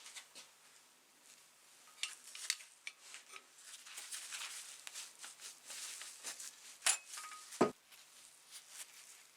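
Small metal parts clinking and scraping as they are handled, with scattered clicks and two sharp clinks about seven seconds in, the second ringing briefly.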